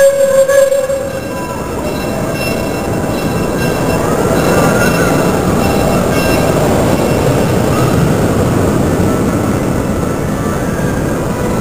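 A steam locomotive's whistle holds one steady note that stops about half a second in. Then comes the steady rumble and rail noise of the approaching train, growing louder over the first few seconds.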